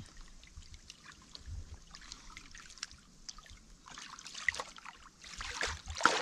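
Hands groping through shallow muddy water, with small trickles and drips, then louder splashing over the last two seconds.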